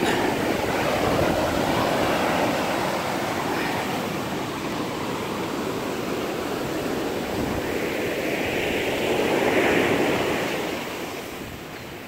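Ocean surf washing onto the beach, a steady rush that swells twice, loudest about ten seconds in, then fades.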